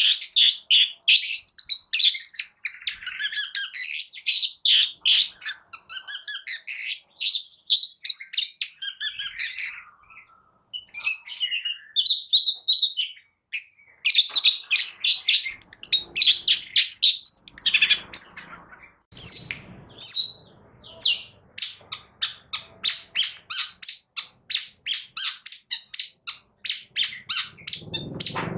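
Long-tailed shrike (cendet) singing: a fast, varied stream of high chirps, trills and whistled phrases. There are short breaks about ten and fourteen seconds in, and the second half turns into rapid, evenly repeated sharp notes, several a second.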